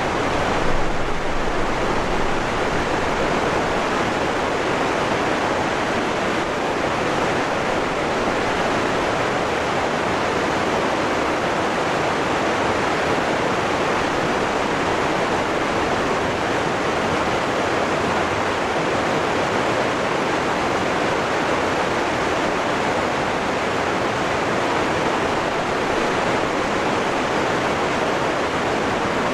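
Waterfall rushing steadily: a dense, unbroken hiss of falling water with no changes or separate events.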